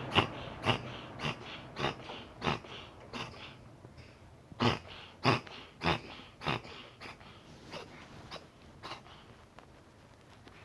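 A pet hiccuping in a steady run, a little under two sharp hiccups a second, with a short pause about four seconds in, then fading toward the end.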